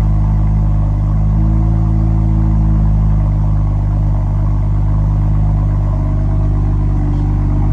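BMW F-series engine and exhaust idling steadily, with a low, even hum. This is the check run after the exhaust flap actuator has been refitted to cure an exhaust rattle.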